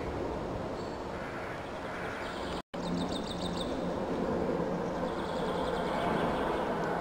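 Steady outdoor background rumble that builds louder through the second half. It cuts out abruptly for an instant, and just after comes a short, quick run of high chirps.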